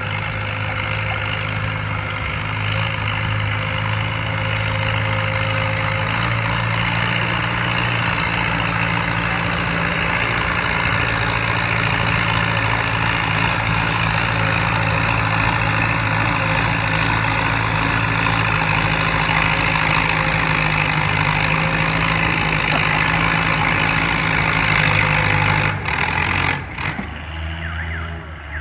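Antique farm tractor engine running steadily under full load as it drags a weight-transfer pulling sled. The engine cuts back sharply near the end, as the pull stops.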